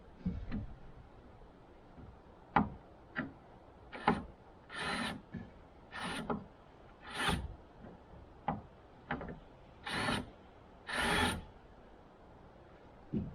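Hand-tool work on boat fittings being taken apart: a series of short scraping, rubbing strokes, often about a second apart, with sharp clicks and knocks between them.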